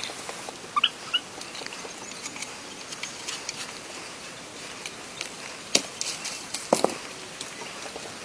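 Scattered light clicks and taps over a steady hiss, with a few brief high chirps about a second in and two sharper knocks later on.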